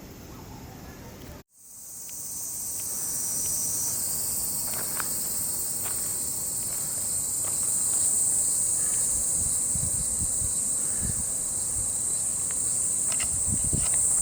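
Steady high-pitched insect chorus that comes in after a brief dropout about a second and a half in and then holds, with a few soft low thumps near the end.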